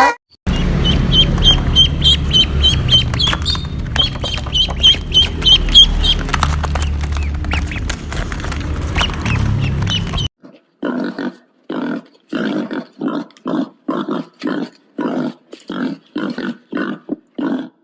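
For about the first ten seconds, rapid high chirps sound over a loud low rumble. Then it cuts to a duck quacking in a steady run of calls, about two a second.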